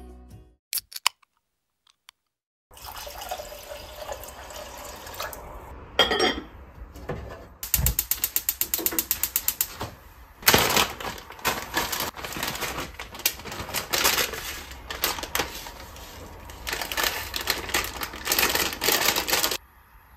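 Kitchen sounds at a gas stove with a small steel saucepan: a run of rapid, even clicks, then water or liquid sounds mixed with many irregular clicks and knocks.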